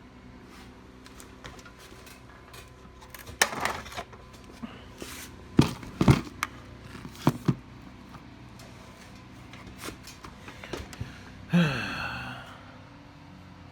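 Small hard clicks and taps of tools and phone parts being handled on a work surface during a phone repair, with several sharp knocks in the middle. Near the end there is a short sound that falls in pitch.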